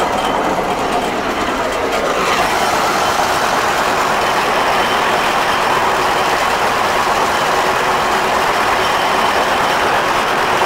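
Fortschritt E303 self-propelled mower running under load while cutting tall, dense grass: a steady mechanical din from the engine and the cutting header.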